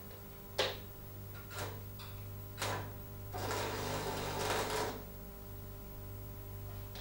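Three sharp clicks about a second apart, then a manual metal arc (stick) welding arc crackling and sputtering for about a second and a half while a tack weld is laid on a steel angle-iron joint, cutting off abruptly when the arc is broken.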